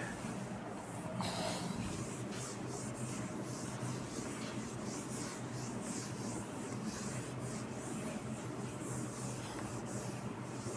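Whiteboard duster wiping across a whiteboard in repeated short, irregular strokes, with one sharper scrape about a second in. A steady low hum runs underneath.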